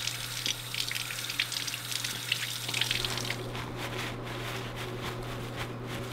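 Kitchen faucet running into a sink, the stream splattering off whole trout as they are rinsed under it. About three seconds in the water stops and paper towels rustle as the fish are patted dry, over a steady low hum.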